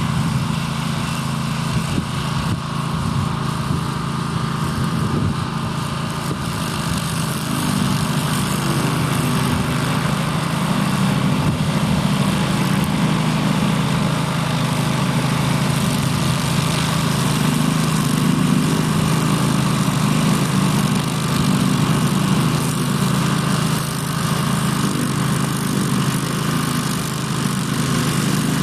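Grillo Climber 9.21 ride-on slope mower running steadily while it cuts long grass on a bank, its engine a constant low drone.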